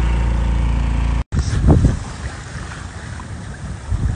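Small Yamaha 4 hp outboard motor running steadily, cut off abruptly about a second in. Then wind buffets the microphone in uneven gusts.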